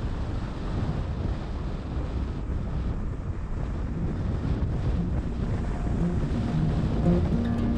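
Steady low rumble of wind and road noise from a car driving along.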